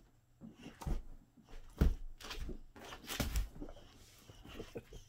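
A boxer dog's paws thumping and claws scrabbling on a wooden floor as it pounces and chases, a handful of irregular knocks and scuffles, the loudest about two seconds in.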